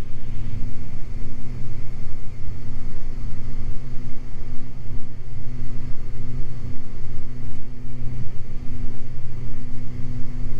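Beechcraft G58 Baron's twin six-cylinder piston engines and propellers droning steadily in the cabin. The engines are at reduced power as the airplane slows toward full-flap speed on approach.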